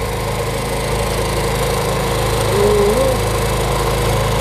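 Small engine on a squid-fishing boat running steadily, with a short wavering tone near the middle.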